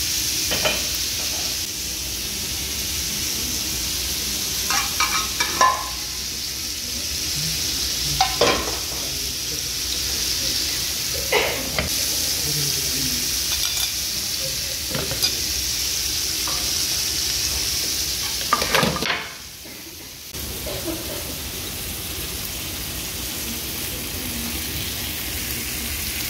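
Food sizzling on a hot cast-iron sizzler plate, a steady hiss, with several sharp clinks and scrapes of utensils against the plate.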